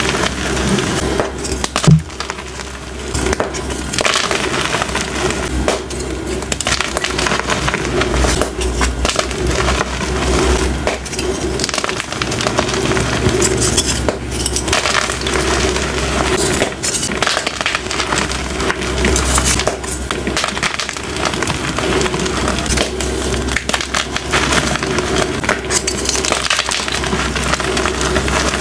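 Gym chalk blocks being crushed and crumbled in the hands: a continuous dense crunching and crackling of breaking chalk. A sharp loud knock comes about two seconds in.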